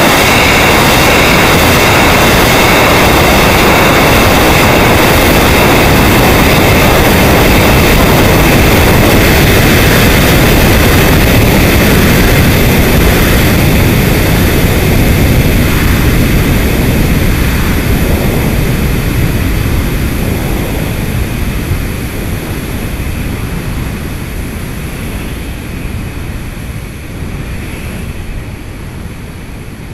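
Steady, loud rushing roar of the STIG-A rocket in flight, picked up by a camera mounted on the vehicle, with a few faint high whining tones above it. The roar fades gradually from about halfway through.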